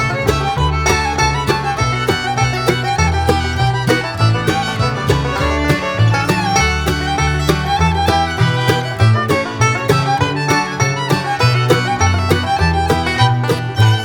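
Bluegrass-style music with fiddle, guitar and a steady rhythm.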